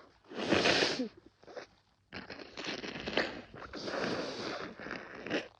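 A woman with a head cold sneezing once, a sudden wet burst about half a second in that ends on a short falling vocal note. After a brief pause comes about three seconds of steady noise with small crackles.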